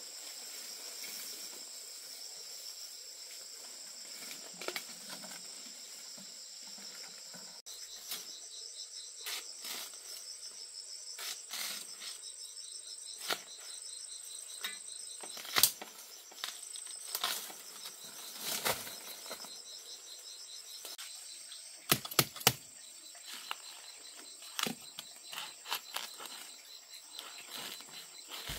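Insects chirring steadily in a high, fast-pulsing drone, with scattered sharp clicks and knocks over it, including three quick ones in a row about three-quarters of the way through.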